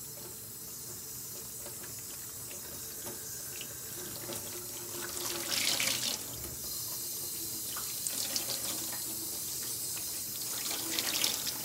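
Kitchen faucet running into a stainless steel sink while a wet microfiber cloth is rinsed under the stream to flush out dish soap. The water hisses steadily, with louder splashing about halfway through and again near the end as the cloth is worked under the tap.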